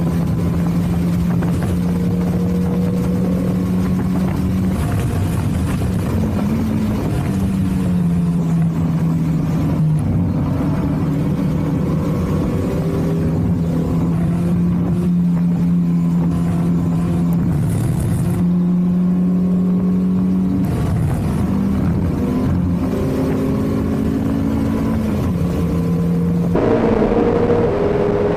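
Toyota MR2's 1ZZ-FE 1.8-litre four-cylinder engine at high revs on track, heard from inside the cabin. It holds a steady high pitch for long stretches, with several short dips and climbs, and the sound changes abruptly twice.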